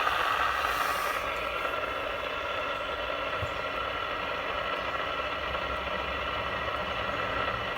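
Steady static with a faint electrical whine from the HR2510 ten-meter radio's speaker, now working again. It is the car's electrical noise getting into the radio even though it is fed directly from the battery.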